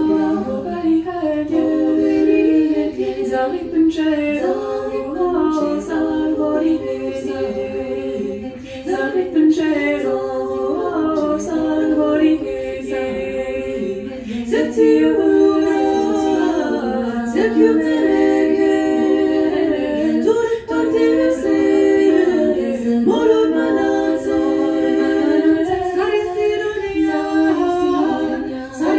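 Unaccompanied vocal music: voices singing slow, held notes that move step by step.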